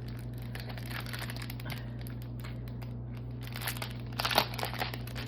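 Plastic packet crinkling and crackling as it is opened by hand, with a louder flurry of crackles about four seconds in.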